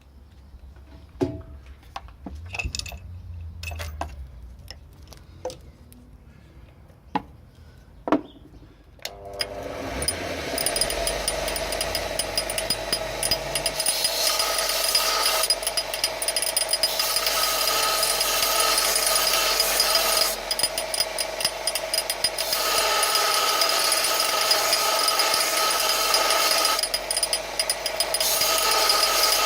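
A few sharp clicks and knocks, then a bench belt sander switched on about nine seconds in and running steadily with a constant whine, its sound changing every few seconds as metal is worked against the belt.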